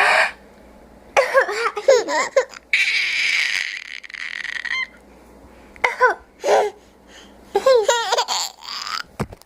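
A young child laughing in several bursts of giggles, set off by an adult's fake coughing, with breathy noisy sounds between the laughs.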